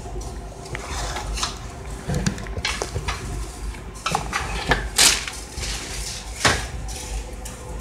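A wooden spoon stirring dry, oil-coated cut fideo noodles in a cast iron skillet: scattered scrapes and clicks, with a sharper knock of the spoon on the pan about five seconds in, over a low steady hum.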